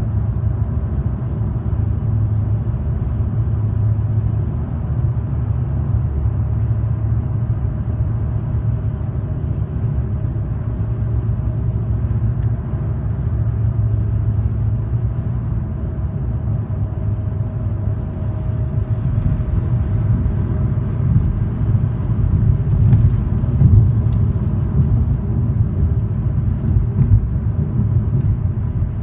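Steady low road and engine rumble inside a car's cabin while driving at highway speed.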